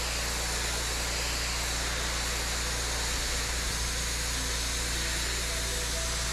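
Pressure-washer jet spraying onto wet stone patio slabs: a steady hiss of high-pressure water over a steady low drone.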